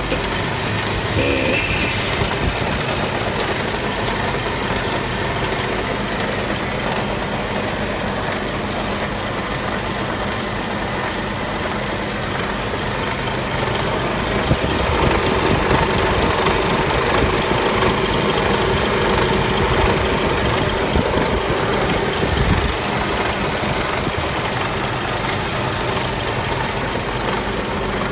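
Mercedes-Benz OM 473 15.6-litre straight-six truck diesel idling steadily just after a cold start. It gets somewhat louder for several seconds in the middle.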